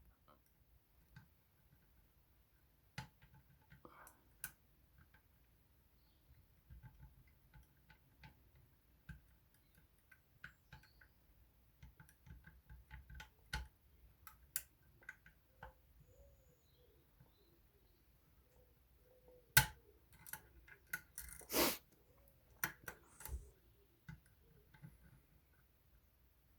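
Lever-lock picking tools clicking and scraping inside a Union 3G110 five-lever lock: irregular faint metallic ticks as the levers are worked, with a few louder knocks in the last third.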